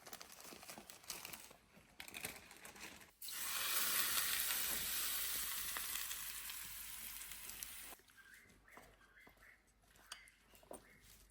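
Ingredients going into hot oil in a pan: a sudden burst of sizzling about three seconds in that fades slowly and stops abruptly about eight seconds in, with light clicks and knocks of cooking before and after.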